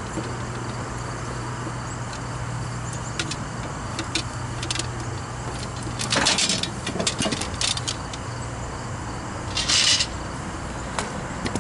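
Hand tools and copper tubing being handled: scattered light clinks and clicks, with two short rustling scrapes about six and ten seconds in. Under them runs a steady low hum that fades about halfway through.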